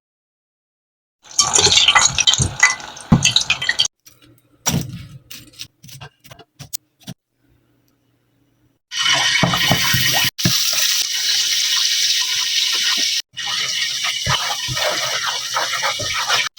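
Lumpia frying in hot oil: a steady crackling sizzle starts about nine seconds in, after a spell of utensil and handling clatter with a few scattered clicks.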